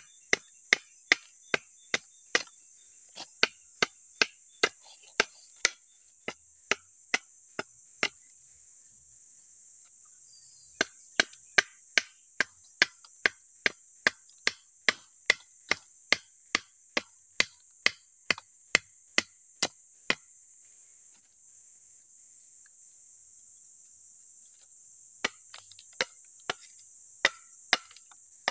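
A mandau blade chopping into a carved gerunggang-wood scabbard to split it open, in a run of sharp wooden knocks about two a second. The knocks pause twice, briefly about eight seconds in and longer near twenty seconds. Insects drone high and steady behind.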